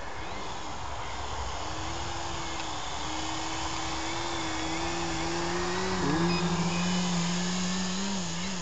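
Skywing MXS radio-controlled aerobatic plane flying low past, its motor and propeller giving a steady hum that comes in about two seconds in, rises slightly in pitch, wavers briefly about six seconds in and dips near the end.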